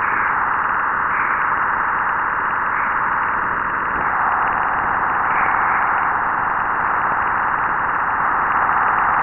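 Sonified plasma-wave data recorded by the Juno spacecraft as it crossed Jupiter's bow shock, where the solar wind is slowed and turned aside by Jupiter's magnetic field. It is a steady hiss in the middle of the range, and the band widens a little downward about four seconds in.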